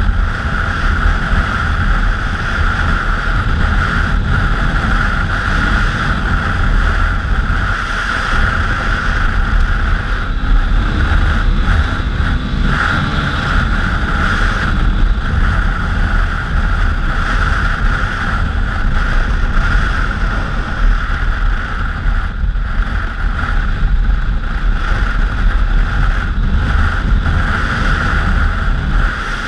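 1999 Honda Africa Twin's 750 cc V-twin engine running steadily while riding, mixed with heavy wind noise on the helmet or bike-mounted camera microphone.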